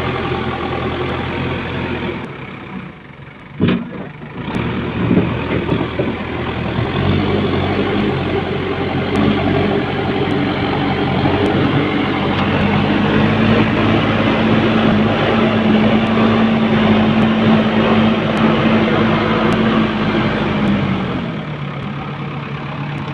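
Diesel engine of heavy construction machinery running, with a single sharp knock about four seconds in. The engine then works harder, holding a higher steady pitch for several seconds before dropping back near the end.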